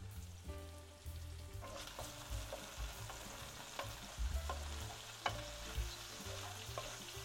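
Diced potatoes and guanciale frying in oil in an aluminium pot as a wooden spoon stirs them. The sizzle picks up about two seconds in, and the spoon knocks and scrapes against the pot several times.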